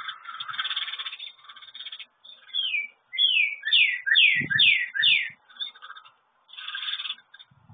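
A songbird singing a run of about seven quick whistled notes, each sliding downward, with a scratchy burst of noise before it and another near the end.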